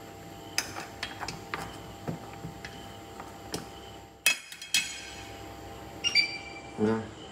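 Wooden chopsticks tapping and clinking against clam shells and the side of a stainless steel pot in scattered knocks, with a sharp cluster of clinks about four seconds in. Near the end, a short electronic beep from an induction hob's touch control.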